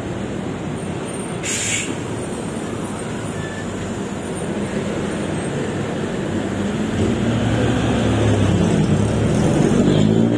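Motor vehicle engine noise from road traffic, growing louder in the second half and rising in pitch near the end as an engine speeds up. A brief hiss of air comes about a second and a half in.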